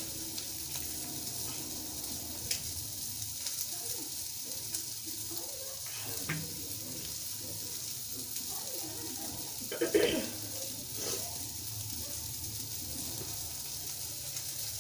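Steady sizzle of food frying in a pan, with a few light clicks and knocks and a brief louder clatter about ten seconds in.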